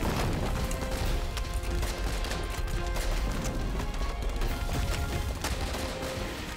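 Battle gunfire from a film soundtrack: many scattered shots over a film score.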